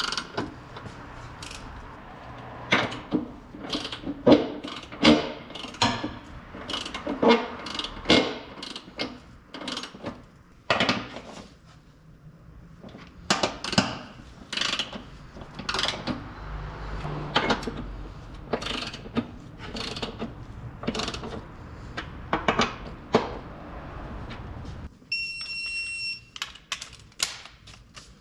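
Irregular clicks, clinks and knocks of hand tools and metal parts being handled in car repair work, over a steady low hum that stops about 25 seconds in. A short high electronic beep sounds just after the hum stops.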